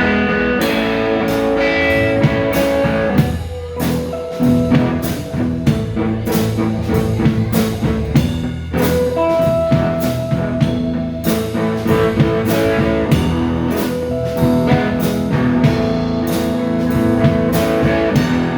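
A band playing with guitar over bass and drum kit, keeping a steady beat; no singing.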